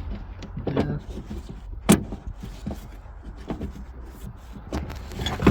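Handling noises of car seat and trim parts being fitted: a few scattered knocks and clicks, the sharpest about two seconds in and another near the end, over a steady low rumble.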